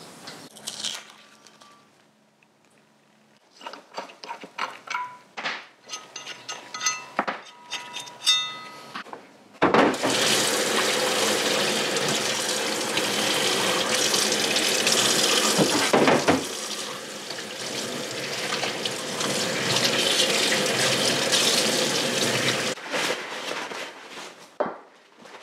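Water running hard from a kitchen tap into a stainless-steel sink and splashing over a sandblasted aluminium fork yoke as it is rinsed. The water starts about ten seconds in and stops a few seconds before the end. Before it there are scattered light metallic clinks and knocks of parts being handled.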